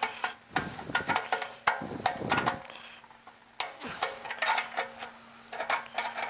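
Groove-joint pliers twisting and working a spot-welded steel tab on a Jaguar XK150 door, giving irregular metallic clicks, scrapes and creaks. The spot weld holds and does not give up.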